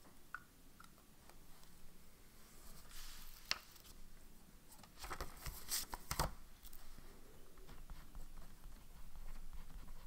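Paper pages of a small spiral-bound notepad being handled and flipped over the wire binding. There is a sharp click about three and a half seconds in, then a burst of paper rustling from about five to six seconds in.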